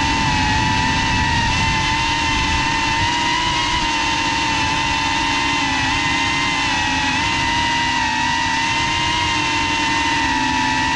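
An FPV drone's electric motors and propellers whine steadily, recorded up close by the drone's own on-board GoPro. The pitch wavers a little throughout.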